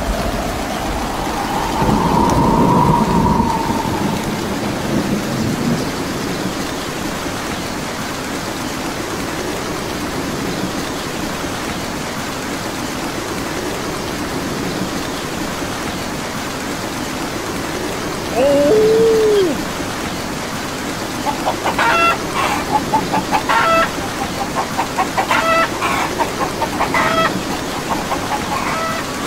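Steady rain hissing throughout, with a low thunder rumble about two seconds in. Past the middle comes a single short falling squawk, then near the end a run of short, rapid chicken clucks.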